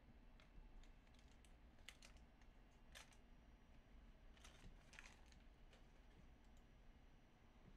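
Near silence with faint, irregular clicks scattered through it, a few to a second, over a low steady hum.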